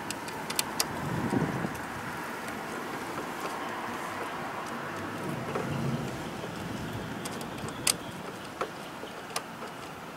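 Light clicks and taps of bolts and hand tools against a GY6 scooter engine's valve cover as it is bolted back on by hand. A few sharp clicks, the loudest about eight seconds in, over steady background noise.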